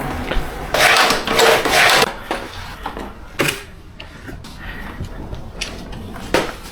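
A floor being mopped by hand: mop swishing across the floor in long strokes about a second in, then a few sharp knocks.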